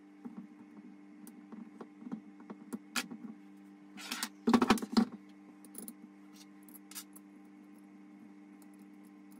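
Small metal tools and parts handled on a bench top: scattered light clicks, with a louder clatter about halfway through as circlip pliers are set down. A steady low hum runs underneath.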